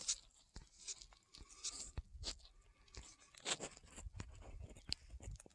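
Faint, scattered crunches and clicks with a few brief soft rustles, irregular and without rhythm.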